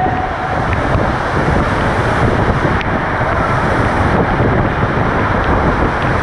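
A cave stream in spate pouring down a waterfall pitch: a loud, steady rush of falling water.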